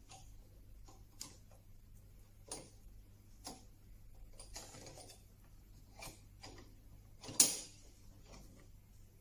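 Irregular light clicks and knocks as steel sash cramps are handled and adjusted on a glued-up wooden panel, with a soft rustle midway and the loudest, sharp knock about seven seconds in.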